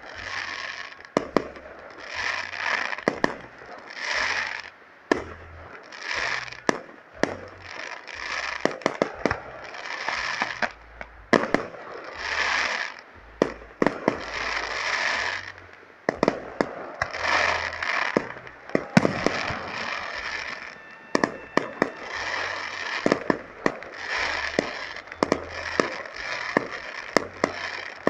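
Aerial fireworks display: a steady run of sharp bangs and crackling reports from bursting shells, mixed with repeated hissing swells, each about a second long.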